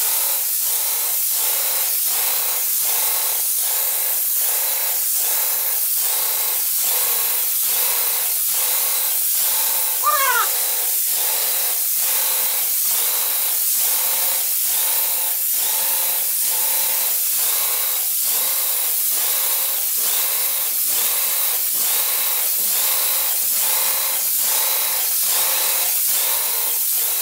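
Wagner Control Pro 250M airless paint sprayer spraying paint through its gun tip: a steady hiss with an even pulse a little more than once a second. A short rising cry cuts in about ten seconds in.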